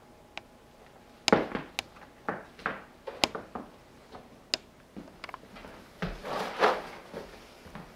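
People moving about on a plywood board laid over the floor: a few scattered knocks and taps, then footsteps and shuffling with a dull thud around six seconds in.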